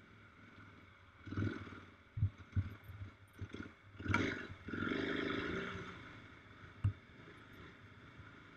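Adventure motorcycle running along a rough sandy dirt track, with engine and wind noise at the mounted camera. A few sharp knocks come about two seconds in and once near seven seconds as the bike jolts over the ruts, and the sound swells louder for about two seconds midway.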